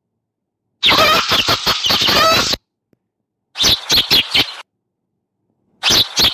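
Bird calls in three separate bursts with silence between them. The first, about a second in, is a harsh pitched call lasting nearly two seconds; two shorter bursts of rapid calls follow.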